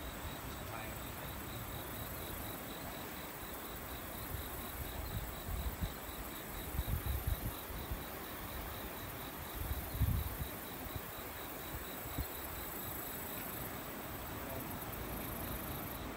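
Insects chirping in a steady, evenly pulsed rhythm over the even rush of a flooded river. A few low rumbles come near the middle.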